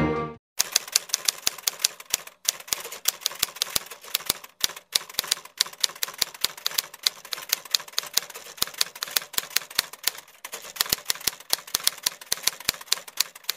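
Typewriter-style typing clicks, quick and irregular at several keystrokes a second, with a few short pauses, about two, four and a half and ten seconds in.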